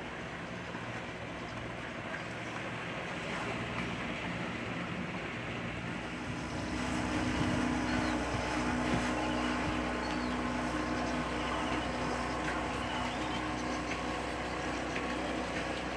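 Boat engine running steadily with a low hum, growing louder about seven seconds in and staying loud.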